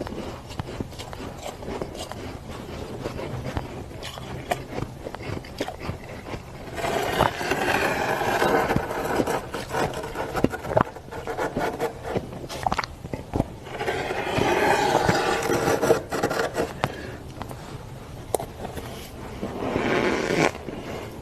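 Freezer frost being scraped and crunched in close-up. There are light crackles for the first several seconds, then three louder stretches of dense, gritty scraping crunch, starting about seven, fourteen and twenty seconds in.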